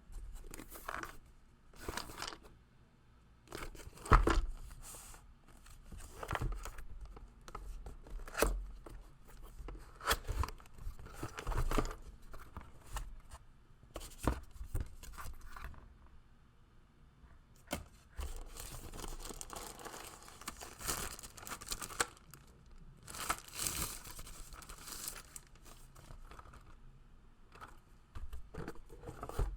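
Packaging being unwrapped and handled: irregular tearing and crinkling of wrapping, broken by scattered knocks and rustles, with a longer spell of crinkling about two-thirds of the way through.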